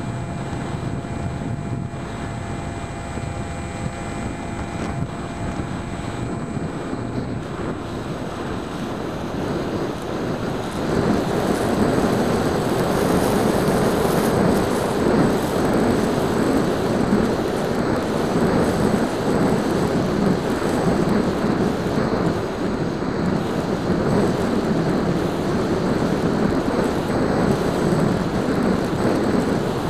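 EasyStar 2's 1400kv electric motor spinning a 7x6 propeller, heard through the onboard keychain camera along with wind rushing over the microphone. The sound grows louder and rougher about eleven seconds in.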